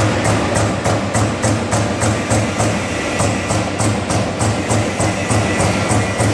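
Background music with a steady beat, about three to four strokes a second.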